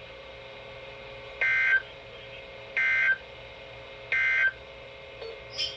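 Three short bursts of NOAA Weather Radio SAME data tones, each about a third of a second and about 1.4 s apart. They are the end-of-message code that closes the weekly alert test.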